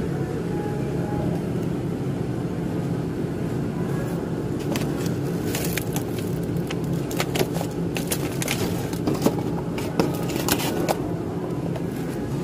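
Plastic packaging of frozen deboned milkfish crinkling and crackling as it is handled, in a cluster of sharp crackles from about halfway in. Under it runs a steady low hum.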